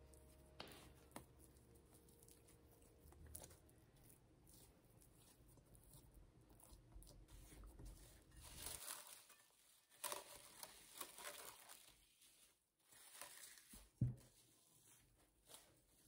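Faint crinkling and tearing of plastic cling film being pulled and stretched over a glass bowl, with small crackles. A single soft thump about two seconds before the end.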